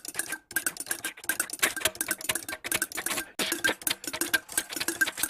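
Disney rain-effect machine turned slowly by hand: dried peas tumbling over rows of finishing nails, making a dense, irregular patter of clicks.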